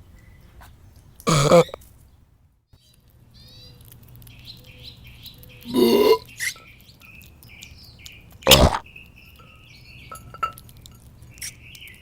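Three short, loud burps, about one and a half, six and eight and a half seconds in, over birds chirping in the background.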